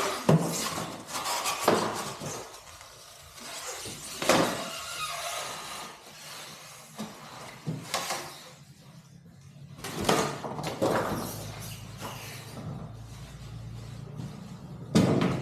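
Scraping and knocking of a heavy boxed toolbox being scooted, laid down and unwrapped, in scattered bursts of a second or so.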